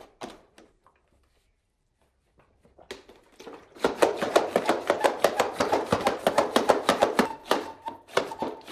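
Pink toy water gun clicking rapidly: a dense run of sharp plastic clicks, about five or six a second, starting about four seconds in after a near-silent stretch, with a faint steady tone joining near the end.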